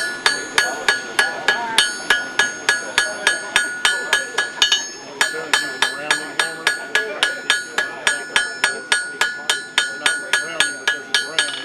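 Blacksmith's hand hammer striking hot iron on an anvil in a steady rhythm of about three blows a second, each blow ringing; the blows pause briefly about five seconds in.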